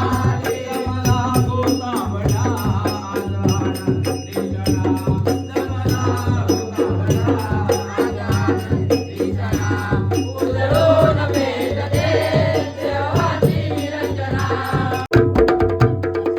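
Background music: a sung melody over a steady bass and a fast, even rattling shaker beat, cutting to a different piece about fifteen seconds in.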